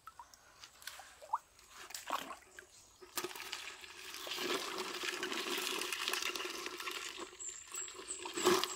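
Shallow stream water trickling over rocks, starting about three seconds in after a quieter stretch of small handling clicks, with a single sharp knock near the end.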